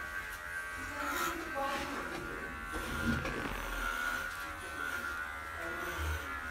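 Cordless electric pet clipper buzzing steadily as it shaves through a pug's coat.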